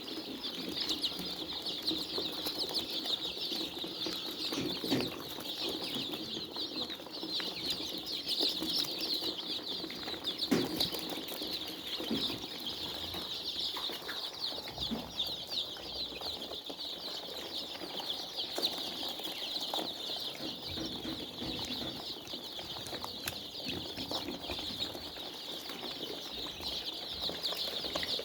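A large flock of chickens in a poultry house: a dense, continuous chorus of high peeping calls, with a few scattered knocks.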